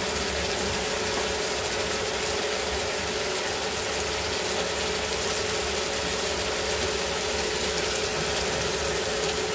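Pangas fish pieces sizzling in a pan of hot oil and spice paste, a steady dense crackle with a steady hum underneath.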